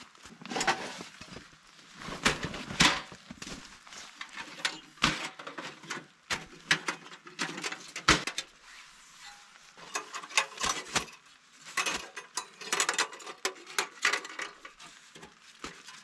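Handling of a folding sheet-metal camp stove: irregular clinks, knocks and scrapes of metal panels being set down and unfolded, mixed with rustling of a rain jacket and tent fabric.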